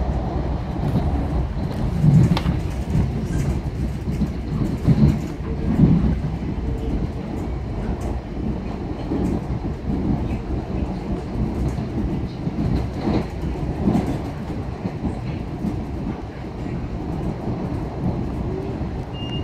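Long Island Rail Road commuter train running along the track, heard from inside the car: a steady low rumble of wheels on rail, with a few louder knocks now and then.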